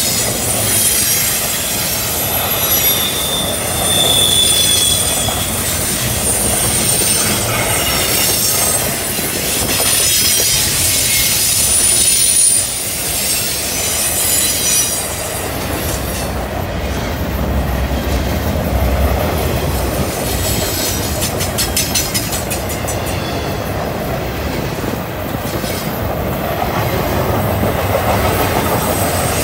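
Double-stack intermodal container well cars of a freight train rolling past, with thin, high-pitched wheel squeal through the first half. After that the squeal fades, and a heavier low rumble takes over with bunches of clicking from wheels over rail joints.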